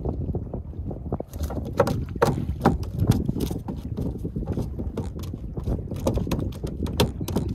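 Wind buffeting the microphone as a low, uneven rumble, with many short clicks and knocks scattered through it from about a second in.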